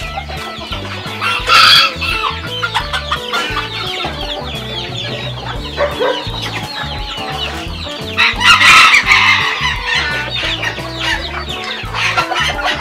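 Bantam chickens clucking and chicks peeping in a steady chorus of short calls, with a louder burst of calls about a second and a half in and a longer, loud one around eight to nine seconds in. Background music with a steady bass line runs underneath.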